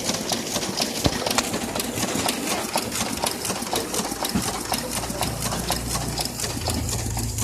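Photocopier running: a fast, even mechanical clatter of clicks several times a second, with a low motor hum coming in about halfway through.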